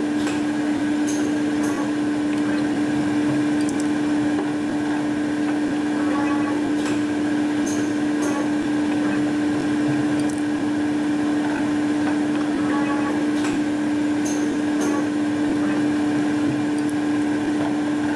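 CNC air-core coil winding machine running while it winds 2.6 mm enamelled copper wire: a steady motor hum, with short sharp clicks every second or few.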